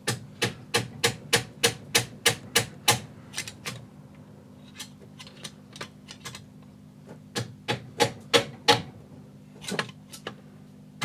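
Quick, light metal-on-metal taps, about three a second for three seconds, then a few scattered ones and another short run later on: a small hammer tapping at the wrist pin of a Subaru EJ20 piston to drive it out of the con rod.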